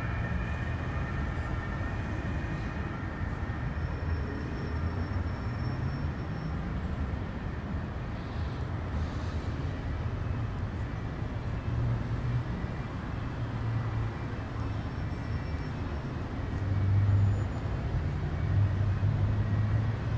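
Steady low rumble of city traffic, swelling twice near the end as vehicles pass.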